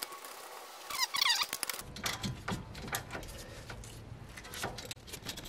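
Hand tools working the bolts of a rear brake caliper: a brief metallic squeak about a second in, then a run of light metallic clicks and ticks.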